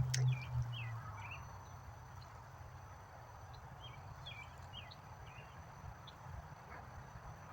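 Small birds chirping in short scattered calls, in two clusters, over a faint steady outdoor background; a low hum fades out about a second in.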